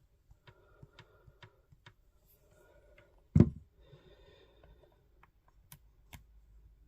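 Small clicks and taps of a charging cable and tablet being handled while the USB-C cable is plugged in, with one heavier thump about three and a half seconds in.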